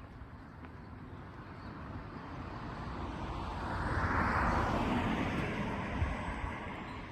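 A road vehicle passing by, its tyre and road noise swelling for a few seconds, loudest a little past the middle, then fading.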